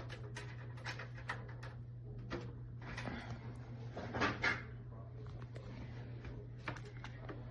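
Small clicks and rustles of a wired gaming headset and its cord being handled, with a louder rustle about four seconds in, over a steady low hum.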